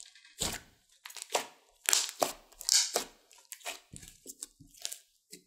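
Thick glossy slime with makeup mixed in being squeezed and kneaded by hand, giving a run of irregular wet squishes and small pops, loudest about halfway through.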